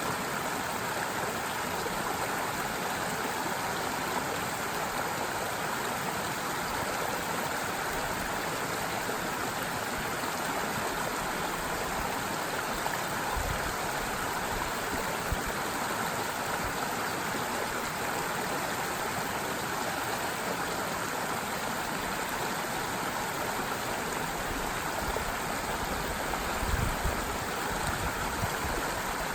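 Forest stream running steadily, an even babbling rush of water, with a few brief low bumps about halfway through and near the end.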